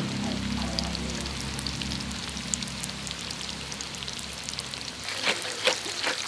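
Tofu cubes frying in oil in a metal wok, with a steady sizzle. About five seconds in, a spatula starts clicking and scraping against the wok as the tofu is stirred.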